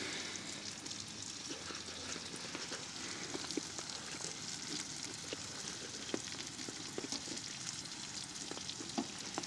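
Thick ribeye steak and onions sizzling steadily in a frying pan, with small pops and light clicks scattered throughout.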